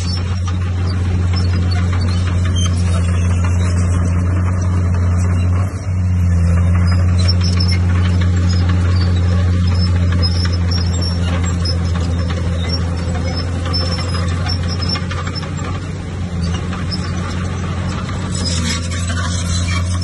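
Heavy machine's diesel engine running steadily under work, a constant low hum with rattling noise over it, dropping briefly about six seconds in.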